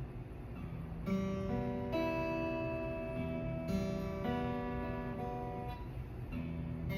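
Acoustic guitar being played: plucked notes and chords ring on, with new notes coming in about a second in and every second or so after.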